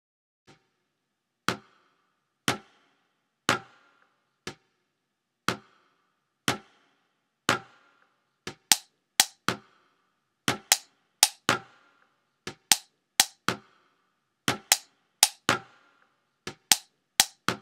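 Sharp percussive clicks or knocks in a steady rhythm, about one a second at first, then coming roughly twice as fast in an uneven, beat-like pattern from about halfway.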